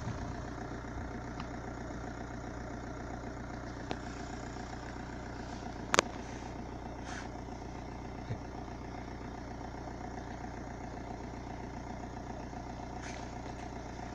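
An engine idling steadily, with one sharp click about six seconds in.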